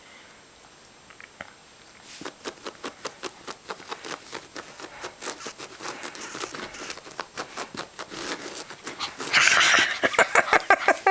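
Puppy mouthing and chewing a plush toy, with a quick run of small clicks and snuffles starting about two seconds in that grows louder and denser near the end.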